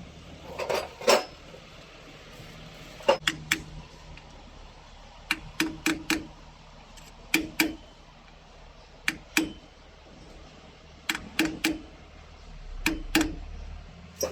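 Sharp metal-on-metal strikes in groups of two to four, one group every couple of seconds, some leaving a brief ring. These are metal parts being struck during the wheel bearing work.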